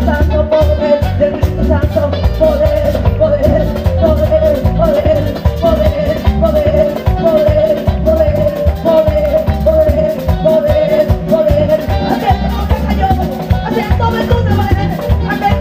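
Live Pentecostal worship chorus in an upbeat Latin style: a woman singing through a microphone over a band with keyboard, guitar, drum kit and congas, keeping a steady beat.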